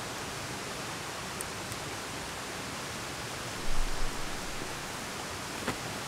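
Steady outdoor rushing hiss, with a brief low thump about two-thirds of the way through and a single sharp click near the end.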